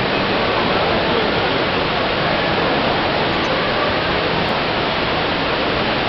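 A multi-storey indoor waterfall: water pouring down a tall curved wall into a pool below, a steady rushing hiss.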